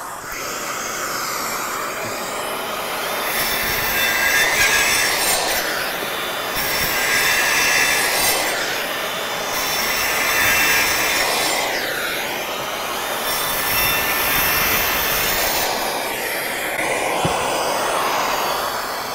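DeWalt Atomic 20V brushless 4-1/2" circular saw making several crosscuts in a row through MDF. Its whine falls away and rises again between cuts, over the steady rush of a Festool dust extractor drawing the dust off through the saw's dust port.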